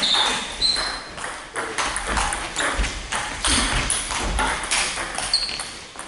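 Table tennis balls clicking off bats and table in quick, irregular succession, from the rally at hand and from neighbouring tables, with a few short high squeaks in between.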